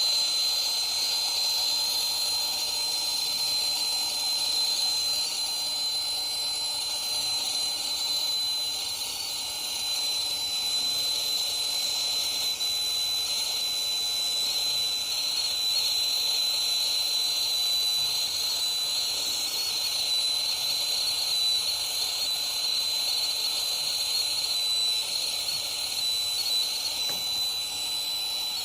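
Brazing torch flame hissing steadily with a thin high whistle, heating a leak spot on an air-conditioning evaporator coil for brazing.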